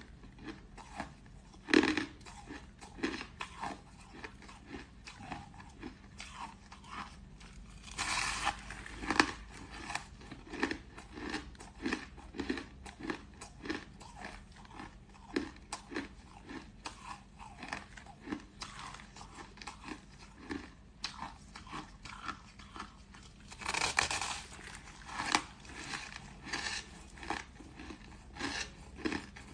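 Packed crushed ice being bitten and chewed, with short crisp crunches every second or so. Two longer, louder crunching bites come about eight seconds in and again about twenty-four seconds in.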